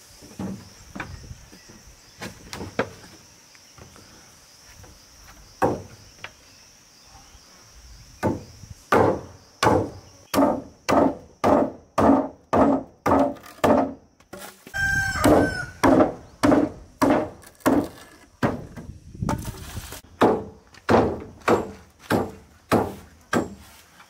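Machete chopping into a round wooden pole. A few scattered blows come first, then from about eight seconds in a steady run of strikes, about two a second.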